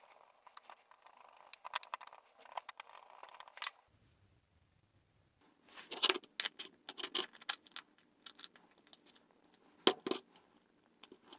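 Small screws being driven into a steel flange with a screwdriver, a scratchy grinding with light clicks. After a short pause come sharp clicks and clatter of small metal parts being handled, with one sharp click near the end.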